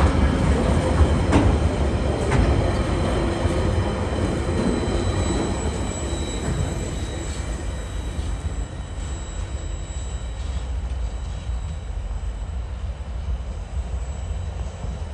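Freight train running past with a steady low rumble, a few sharp wheel clicks early on and a faint high wheel squeal, fading slowly as the train draws away.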